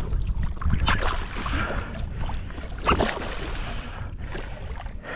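Ocean water sloshing against a kayak hull, with two sharper splashes or knocks about one second and three seconds in.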